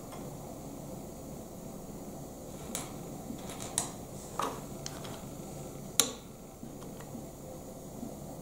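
Plastic Lego pieces being handled and set down on a wooden table: a scattering of light clicks and taps, the sharpest about six seconds in, over a steady low hiss.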